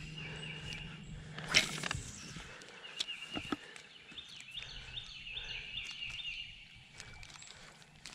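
A cast with a baitcasting rod and reel: a brief whoosh about a second and a half in, as a low steady hum cuts out. Then a bird sings a run of repeated short chirps, with a couple of sharp clicks from the boat.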